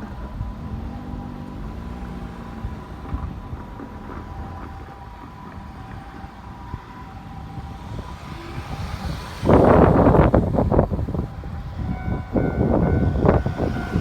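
Railway level crossing alarm ringing steadily, then an eight-car Keikyu electric train arrives suddenly about two-thirds of the way through and runs over the crossing, its wheels clattering over the rail joints.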